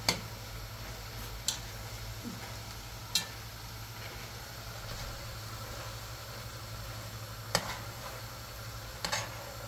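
Metal spoon stirring a thick pot of beans and spinach, knocking sharply against the pot about five times, over a steady low hum.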